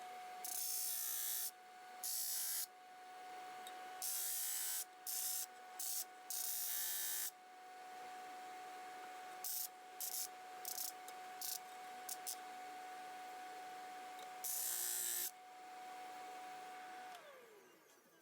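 Small electric motor of a power sharpening tool running at a steady speed, with repeated short bursts of harsh grinding hiss as the jointer plane's iron is pressed against it. The motor winds down near the end.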